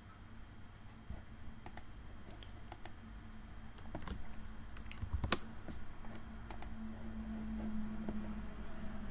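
Computer keyboard keystrokes and mouse clicks, scattered and irregular, with one sharper click about five seconds in.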